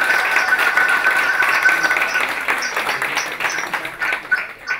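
Audience applauding, many hands clapping at once, dying away near the end. A steady high tone sounds under the clapping for the first two seconds.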